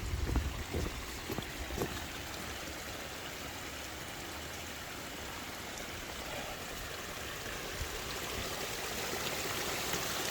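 Storm runoff water rushing steadily, growing a little louder near the end. Low wind buffeting on the microphone during the first couple of seconds.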